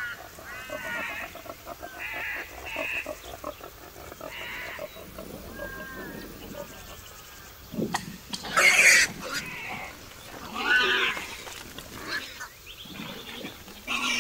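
Feral boar squealing and grunting, loudest in two harsh squeals about eight and eleven seconds in. A bird calls at the start.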